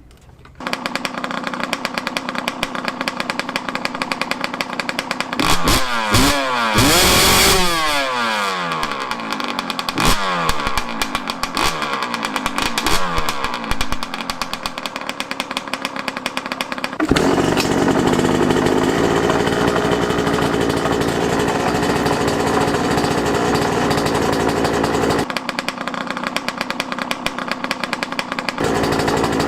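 2005 Yamaha YZ125's 125 cc two-stroke single running through a new stock header pipe and silencer, blipped up and down several times in the first half, then held at a steady higher rev for about eight seconds before dropping back. It has just been started and is still running on choke.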